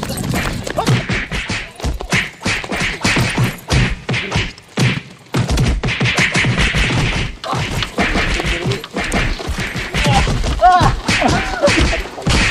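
A rapid run of whacks, thuds and crashes, like blows from sticks and a hammer, among them a hammer smashing a box against rocks. Brief shouts come near the end.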